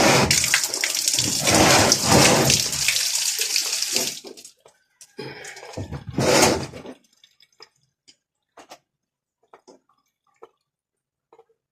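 Water running hard for about four seconds and stopping, then a shorter gush, followed by scattered drips.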